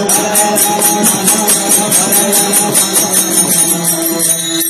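Small brass hand cymbals (taal) of a warkari kirtan chorus clashed in a fast, steady rhythm, about five strikes a second, over held musical tones.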